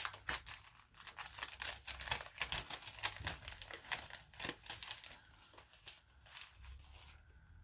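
Packaging crinkling and rustling in quick, irregular crackles as it is handled and opened, stopping about seven seconds in.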